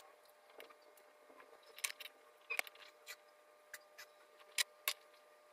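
Light, scattered clicks and taps, about half a dozen, from a paintbrush and a card dress tag being handled on a tabletop, over a faint steady hum.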